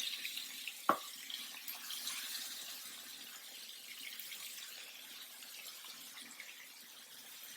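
Marinated chicken pieces sizzling in hot ghee and butter in a pan, the hiss dying down steadily as the first burst of frying settles. One sharp knock of a utensil on the pan about a second in.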